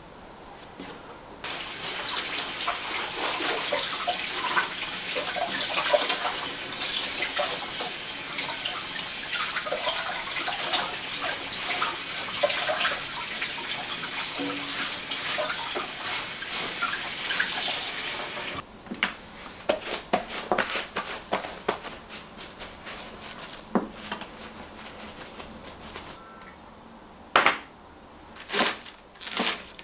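Kitchen tap running onto a raw pigeon as it is rinsed by hand in the sink, water splashing on the bird and hands; the flow starts a second or two in and cuts off suddenly after about seventeen seconds. Afterwards faint handling clicks, then a few sharp knocks near the end.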